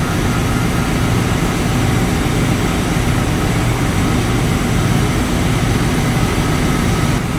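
Steady drone of a ship's engine-room machinery, a low hum with a hiss above it that holds an even level throughout.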